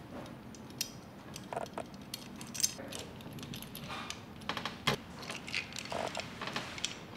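Small metal clicks and clinks, irregular and fairly quiet, as a washer and nut are fitted onto a bolt on a brake master cylinder's steel bracket and tightened by hand.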